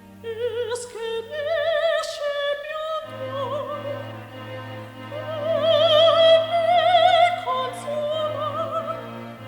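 Background music: an operatic solo voice singing with wide vibrato over sustained orchestral accompaniment.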